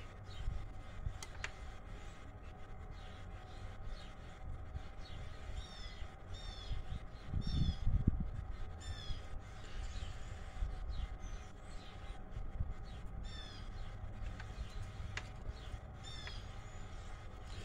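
Animal calls: short, high chirps falling in pitch, repeated every second or so through the middle of the stretch, over a steady low rumble that swells briefly about seven to eight seconds in.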